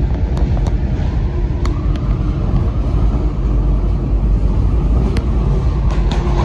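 Mandalay Bay–Excalibur tram running along its guideway, a steady low rumble heard from inside the car, with a few faint clicks.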